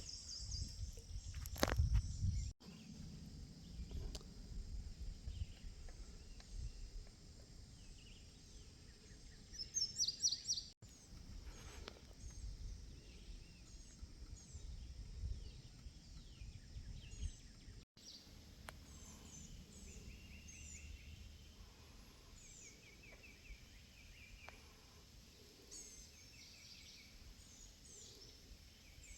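Several birds chirping and calling, short repeated notes at a high pitch, busiest about ten seconds in and again in the last third, over a low steady rumble. The sound breaks off abruptly three times.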